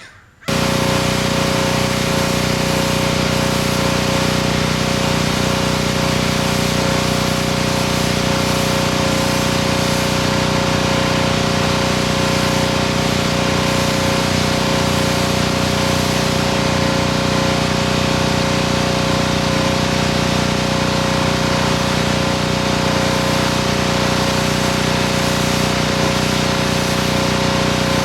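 Pressure washer running and spraying water onto concrete roof tiles: a loud, steady hiss of the high-pressure jet over the constant hum of the machine's motor and pump. It starts abruptly about half a second in and holds unchanged.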